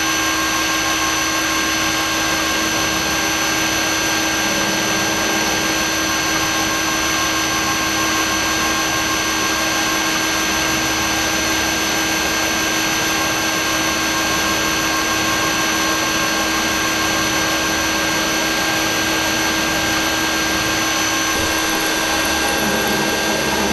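Milling machine running with an end mill taking slow cuts in half-inch aluminium plate: a steady machine whine with several held tones over the hiss of the cut.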